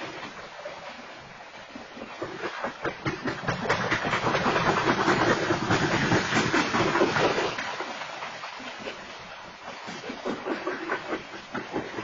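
Freight train coal hopper cars rolling past: a rapid, continuous clatter of steel wheels over the rails with a hissing rattle, swelling louder from about three seconds in and easing off after about eight.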